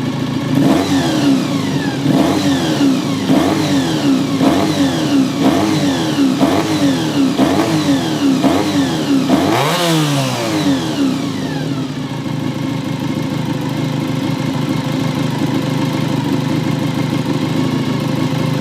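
Honda NC30 (VFR400R) 400 cc V4 engine with gear-driven cams and an aftermarket exhaust, blipped repeatedly on the throttle, each rev rising sharply and falling back, with the biggest rev near the end of the run about ten seconds in. It then settles to a steady idle.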